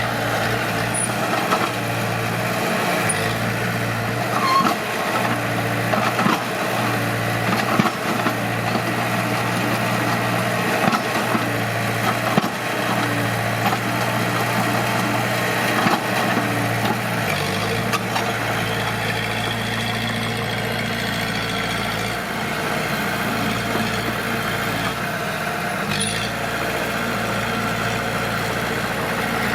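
Heavy diesel engine of earthmoving machinery running steadily, with a few short knocks. The engine note shifts partway through and drops lower near the end.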